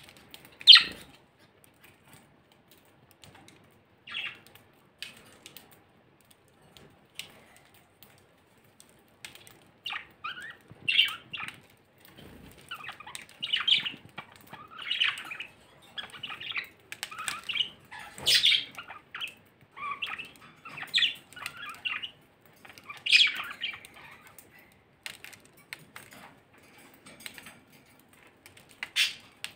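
Budgerigars giving short chirps and squawks, a few at first, then a busy run through the middle, with scattered small clicks as a budgerigar bites seeds from a millet spray.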